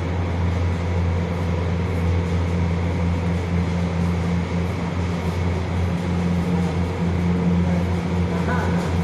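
Steady low machine hum, unbroken and even in level, from the corridor's ventilation or fan machinery.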